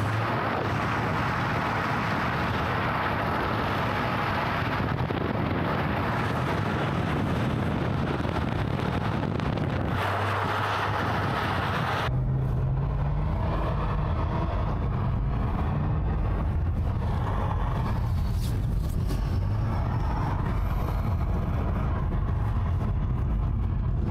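Car running, with a steady rushing noise over the engine. About halfway through the sound changes abruptly: the rushing drops away, leaving a steady low engine hum.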